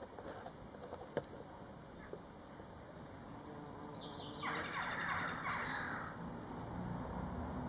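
A bumblebee buzzing low and steadily at the flowers. About four seconds in a bird calls over it, a burst of quick notes lasting about a second and a half, the loudest sound here.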